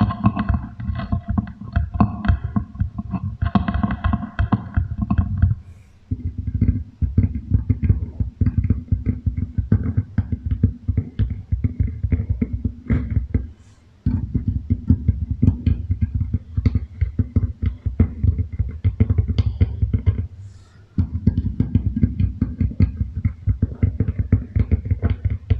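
Beeswax food wrap rapidly crinkled and tapped against a microphone and wooden table, run through a heavy echo effect to imitate rain, in long dense runs of crackles with brief pauses about six, fourteen and twenty-one seconds in. Steady ringing echo tones sound over the crackling in the first five seconds.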